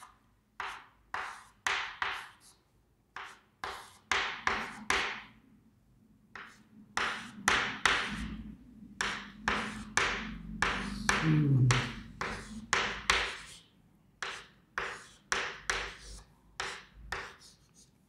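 Chalk tapping and scraping on a chalkboard as numerals are written, a quick run of short, sharp strokes with brief pauses between figures.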